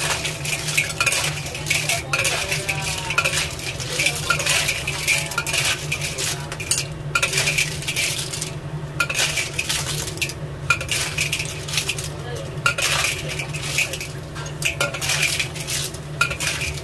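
A spatula scraping and knocking around a wok as batik clams (undulated surf clams) are stir-fried, their shells clattering against the pan in quick, irregular clinks and scrapes.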